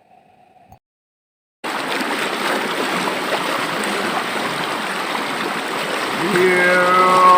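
Steady noise of a flowing river stream, cutting in after a brief silence about a second and a half in. Near the end a long held note starts over the water, sliding up at its start.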